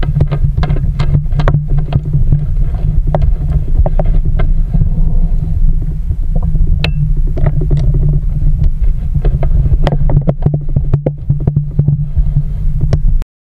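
Muffled low rumble from a GoPro in its waterproof housing held underwater, with many irregular clicks and knocks as a manatee's lips and bristles mouth and bump the housing. The sound cuts off abruptly near the end.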